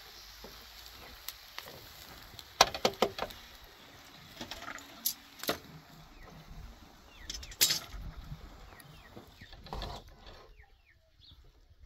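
Metal kebab skewers clicking and knocking against the rim of a charcoal grill as they are turned, a few irregular sharp clinks, with faint bird chirps in the background.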